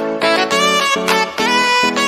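Instrumental background music: a lead melody of short held notes, each changing every third to half second.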